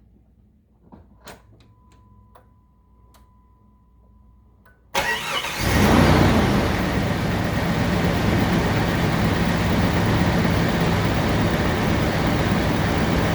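A few light clicks and a faint steady tone, then about five seconds in a Jeep Grand Cherokee ZJ's 5.2 L Magnum V8 cranks, catches and settles into a steady idle. This is a test start after fitting a new breather filter, and the rough idle being chased is not cured by it.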